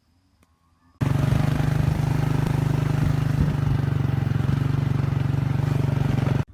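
A loud, steady machine drone with a fast, even pulse, starting abruptly about a second in and cutting off suddenly near the end.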